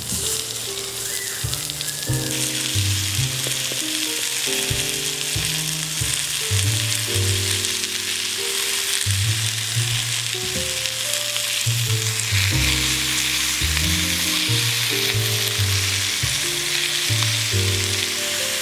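Food sizzling and frying in a pan, with a steady hiss that grows louder about two seconds in. Background music with a plodding bass line plays under it.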